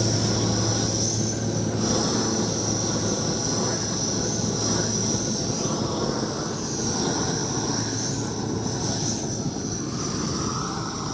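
Propane weed torch burning at full flame: a steady roaring hiss with a thin high whistle over it.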